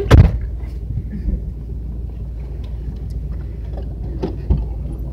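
A car door thumps shut just after the start, heard from inside the cabin, then the parked car's engine idles with a steady low rumble. A couple of faint knocks come near the end.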